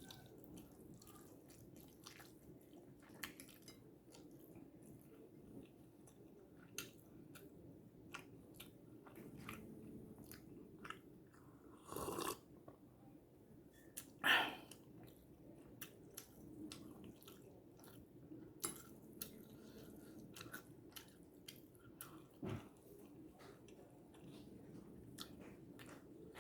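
A person eating fried noodles close to the microphone: faint chewing with many small wet mouth clicks, and two louder short sounds about twelve and fourteen seconds in.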